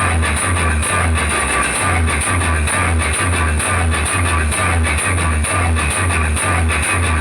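Loud music with no singing: a heavy bass beat pulsing steadily about twice a second under guitar.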